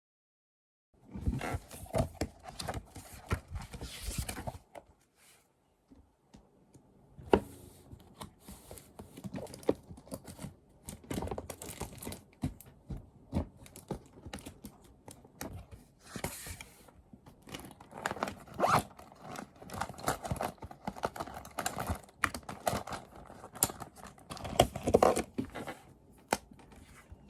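Close handling sounds: crinkling and tearing of packaging or paper, mixed with irregular small clicks, knocks and scrapes. It stops for a couple of seconds a few seconds in, then carries on, busiest in the second half.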